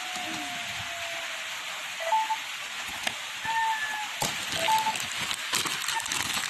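Rustling and sharp clicks of a wristwatch and its cardboard presentation box being handled, starting about four seconds in, over a steady hiss. A few short, faint high beeps sound in the background.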